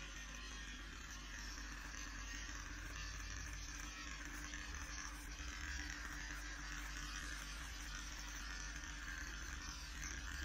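Battery-powered electric hair clippers running with a steady buzz while cutting short curly hair close to the scalp.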